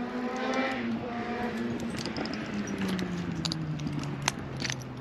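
Engine hum of a passing motor vehicle, falling slowly in pitch as it goes by. A few light clinks of glass shards being handled come through on top.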